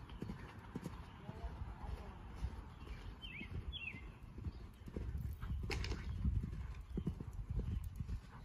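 Hoofbeats of a chestnut horse cantering on sand arena footing: a continuous run of dull, low thuds.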